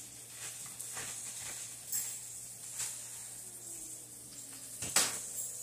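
A handful of scattered clinks and taps of kitchen utensils and dishes, the sharpest about five seconds in.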